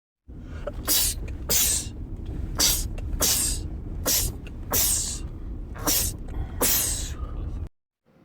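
A man sneezing about eight times in quick succession, roughly one sneeze a second, each a sharp hissing burst, over a steady low rumble. The sound starts and stops abruptly.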